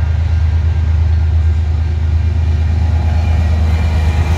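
Approaching diesel freight locomotives running under power: a steady, loud, low engine drone.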